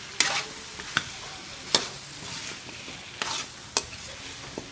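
Metal ladle scraping and clanking against a metal wok, about five sharp knocks, while chicken, potatoes and carrots are stirred over a steady sizzle of frying in oil.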